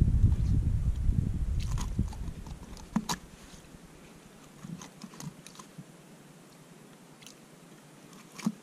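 Wind rumbling on the microphone at first, dying away within about three seconds, then scattered small clicks and crackles from a zander and wet gill net being handled on the ice.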